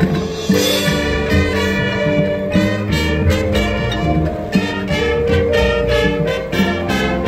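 High school marching band playing live: the brass section sounds full sustained chords over the front ensemble's percussion, with a run of accented hits about halfway through.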